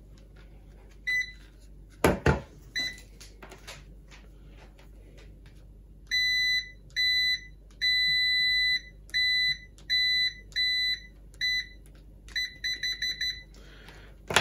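Multimeter continuity beeper sounding as its test probes make contact across a strip of adhesive foil tape, showing that the foil conducts. It gives a high steady beep over and over: a couple of short beeps, then a string of longer ones with one held about a second, then a quick stutter of short beeps near the end. A sharp click sounds about two seconds in.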